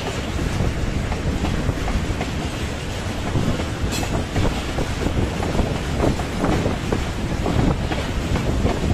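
Freight train of railway tank wagons rolling past, steel wheels clattering over the rail joints in a steady stream of irregular knocks, with one sharp click about four seconds in.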